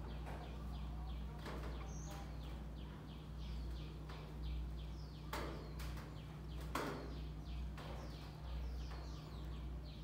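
Small birds chirping over and over, short falling notes several times a second, over a steady low hum. Two sharp clicks come a little past the middle.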